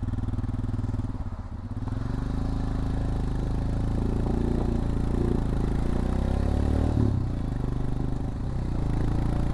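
Royal Enfield Scram 411's air-cooled, fuel-injected 411 cc single-cylinder engine pulling away, its revs rising, dropping at a gear change about seven seconds in, then rising again.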